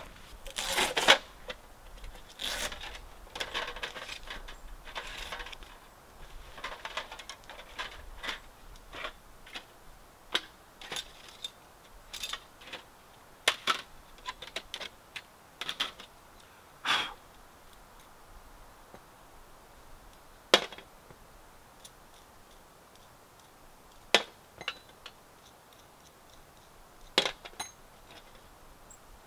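Thin metal plates of a flat-pack folding wood stove clicking and clinking as they are handled and fitted together. Dense rustling and clatter in the first few seconds, then separate sharp clicks every second or few.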